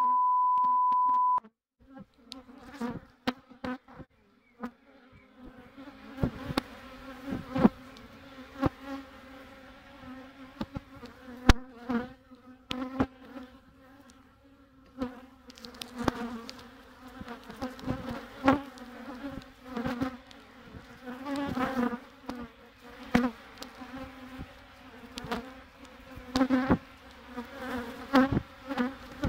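A loud steady beep for the first second or so, then the buzzing of a honeybee colony over an open hive, the hum swelling and falling, with scattered sharp knocks.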